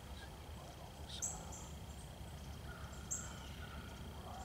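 Woodland ambience: a short, very high bird chirp twice, about two seconds apart, over a steady high-pitched drone and a low rumble.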